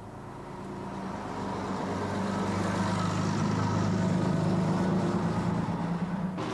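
Coach engine running with a steady low hum, growing louder over the first few seconds. Near the end the sound cuts abruptly to a different steady drone.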